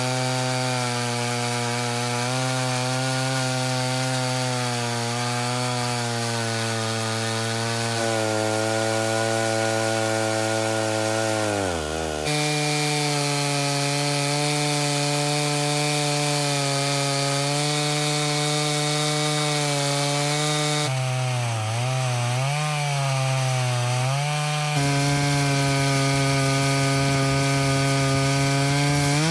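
A vintage Stihl 056 two-stroke chainsaw in an Alaskan chainsaw mill, running flat out under load as it rips lengthwise through a chestnut log to cut a board. The engine pitch sags and recovers about twelve seconds in, and wavers for a few seconds later on.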